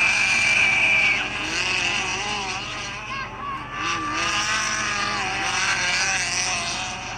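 Dirt-track midget race cars running on the track, several engines going at once, their pitch rising and falling as they power through the turns and pass. A high, steady engine note is loudest in the first second.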